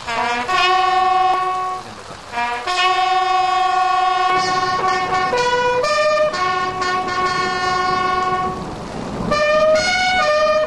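Military bugle call: long held brass notes stepping between a few pitches, with short pauses for breath about two seconds in and near the end.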